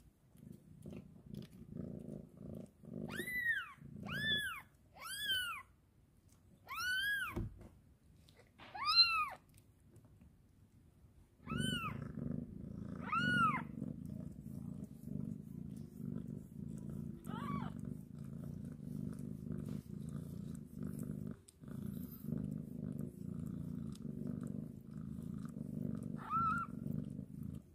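Newborn kitten mewing in short, high cries that rise and fall, about seven in the first fourteen seconds and a couple more later, over the mother cat's purring, which becomes louder and steady about halfway through.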